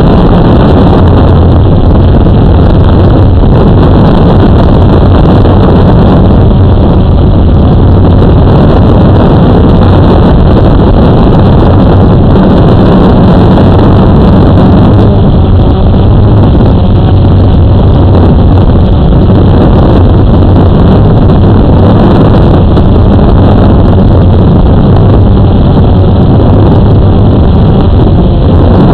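Blade 350 QX quadcopter's motors and propellers running steadily and loudly, picked up close by the camera it carries, with a constant low hum under a dense rushing noise.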